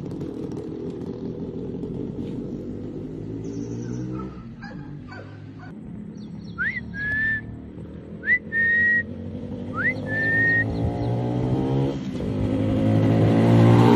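Motorcycle engine running at low revs, dipping in the middle and growing louder near the end as it comes closer. Over it come three loud whistles about a second and a half apart, each a quick upward slide into a held note.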